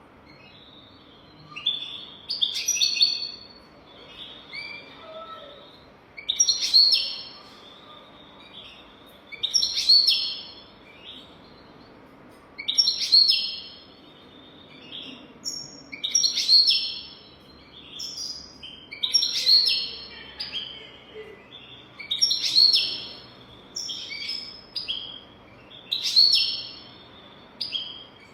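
European goldfinch singing: short, bright twittering phrases repeated about every three seconds.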